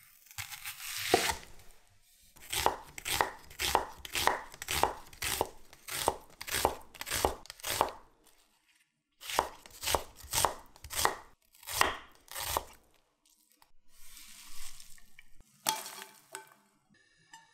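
Chef's knife slicing raw onions on a wooden cutting board: one longer cut through a whole onion, then steady slicing at about two strokes a second, pausing once midway. Near the end, a short rustle and a knock.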